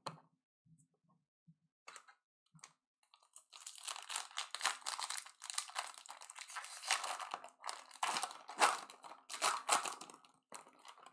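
Foil wrapper of a Bowman Draft jumbo baseball card pack being torn open and crinkled by hand. After a few faint ticks, a dense, irregular crackling starts about three and a half seconds in and runs on.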